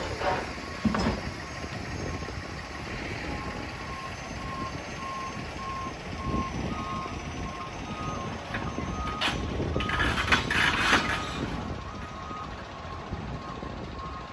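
Heavy machinery's reversing alarm beeping at a steady repeating rate over the low rumble of diesel equipment. Loud crashes of demolition debris come near the start and again about nine to eleven seconds in.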